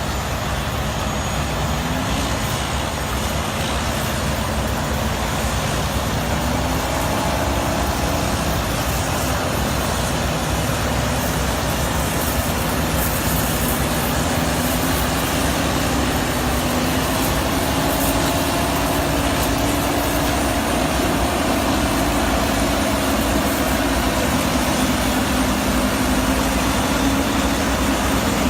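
Euclid TC-12 crawler tractor's twin diesel engines running steadily, their pitch rising and falling slowly as the load changes, under a dense mechanical noise.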